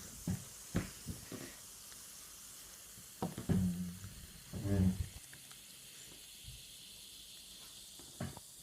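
Baking soda and vinegar foaming over in a model volcano, fizzing with a steady faint hiss. A few soft knocks come in the first second and a half, and two short vocal sounds come about three and a half and five seconds in.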